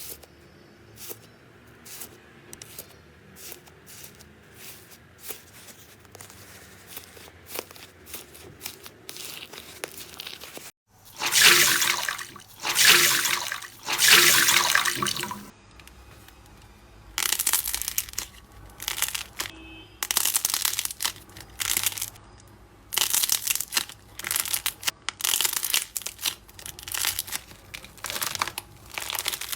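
Slime being pressed and pulled by hand close to the microphone: a run of small sticky clicks and crackles, then, after a cut about eleven seconds in, louder repeated bursts of wet squelching and crackling.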